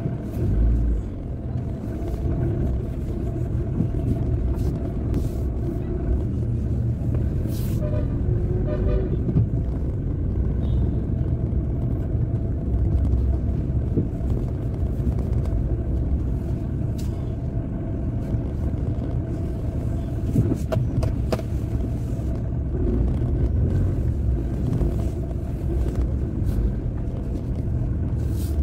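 Steady engine and road noise of a motor vehicle driving along city streets, heard from on board, a low continuous rumble with a faint steady hum above it. A brief rapid pulsing sound cuts in about eight seconds in.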